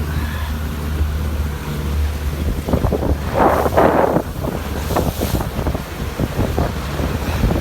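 Wind buffeting the microphone over choppy water slapping against a small boat in rough seas, with a steady low rumble, many short slaps, and a louder splash of water about three and a half seconds in.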